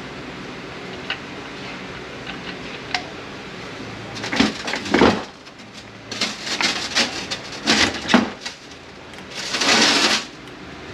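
Metal transmission parts (planetary gear set pieces, bearings) being handled on a workbench: a few light clicks, then a run of knocks, clanks and scrapes, the loudest about halfway through, ending with a longer scrape near the end.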